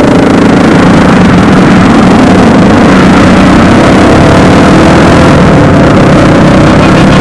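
Motorcycle engines running at a steady cruise during a group ride, heard from among the moving pack, under heavy rushing wind noise.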